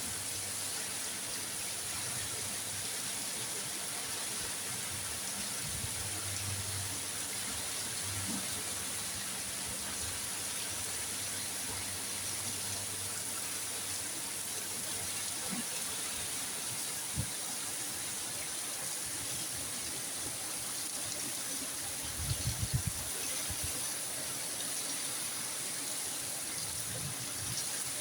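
Heavy rain falling, a steady hiss of water. A few soft low thumps come about three quarters of the way through.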